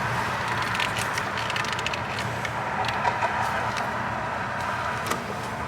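Steady outdoor background hiss and rumble with a few light clicks, as a replacement heater hose connector is pushed into a truck's heater hose.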